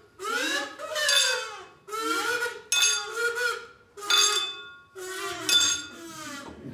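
High-pitched, squeaky puppet voices with no real words: a string of short squeals and chirps that slide up and down in pitch, about one or two a second.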